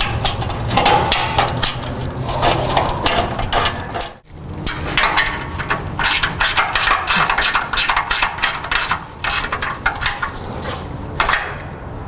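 Rapid, irregular clicking from a hand tool as the nuts on an exhaust band clamp are tightened, with a brief pause about four seconds in.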